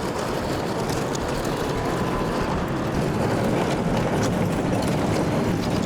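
Heavy wrecker's diesel engine running steadily under load while it tows a fire-damaged semi tractor along the road.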